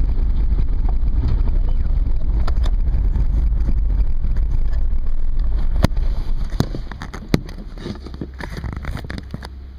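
A vehicle driving along a gravel road: a steady low rumble of engine and tyres on gravel, with a few sharp knocks from stones and bumps. About seven seconds in, the rumble drops much quieter.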